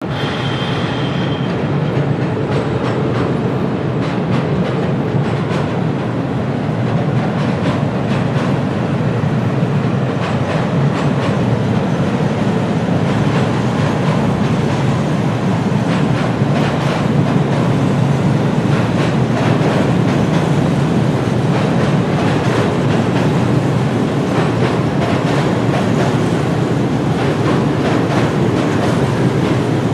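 Train running along the track with a steady rumble and the clickety-clack of wheels over rail joints, with a brief high whine in the first second or so.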